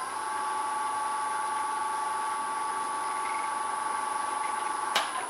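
Wood lathe motor running at a steady speed with an even whine. About five seconds in a click is heard and the whine starts to fall as the lathe is switched off and spins down.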